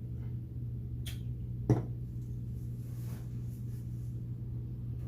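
A steady low hum, with a faint click about a second in and a sharp, louder click half a second later.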